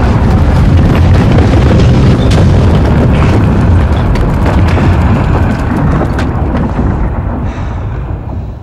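Sandstorm wind: a loud, deep, steady rush of blowing wind and sand that swells in at the start and eases slowly toward the end.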